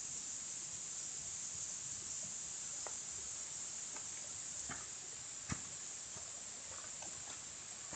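Night-time insect chorus, a steady high-pitched hiss. Scattered faint ticks and clicks run through it, with one sharper click about five and a half seconds in.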